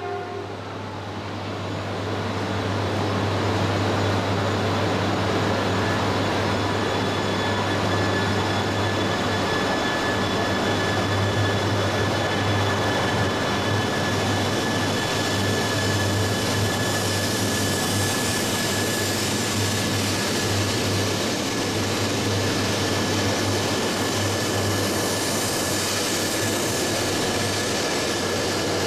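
E3-series Shinkansen train set pulling out of the platform and sliding past close by: a steady rush and rumble of the moving cars, with a thin steady high whine joining about six seconds in.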